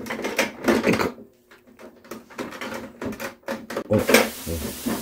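Hands knocking and rattling against the hard plastic cover of a Brother home sewing machine, a string of short clacks. From about four seconds in, a steady hiss with a low hum under it comes in.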